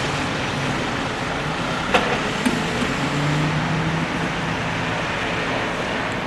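Road traffic noise with a vehicle engine running, a low steady hum for a couple of seconds, and two sharp clicks about two seconds in.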